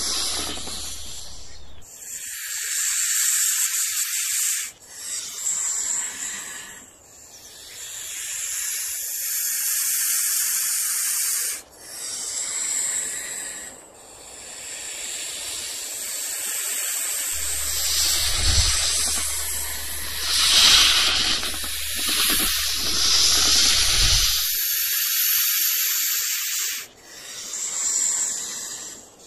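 Steady hissing noise, mostly high-pitched, that drops out suddenly several times and comes straight back, with a low hum under parts of it.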